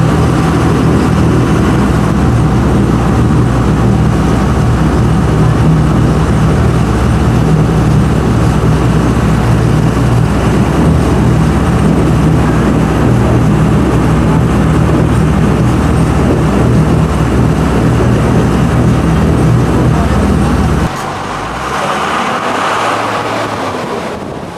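An amphibious duck boat's engine running steadily as the boat travels: a loud, even drone. About 21 seconds in the drone cuts off suddenly, leaving quieter background noise.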